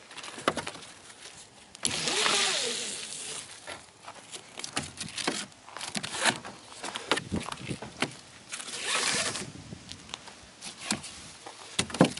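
Nylon cam straps being undone and pulled free: webbing rasping as it is drawn through the buckles and around the frame, in a few longer pulls, with scattered sharp clicks and knocks from the buckles being handled.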